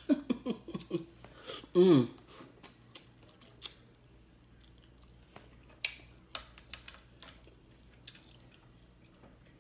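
Eating sounds from a mussel taken out of a seafood boil: scattered faint clicks of shell and fingers, plus mouth sounds as it is eaten, with a short vocal sound about two seconds in.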